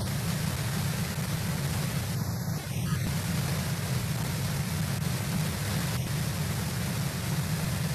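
Steady rushing background noise from the eagle nest cam's outdoor microphone, a low rumble under an even hiss, unchanging throughout; no eagle calls.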